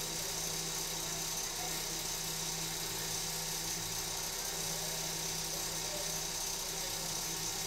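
Steady low hum with a hiss, holding the same level with no distinct events.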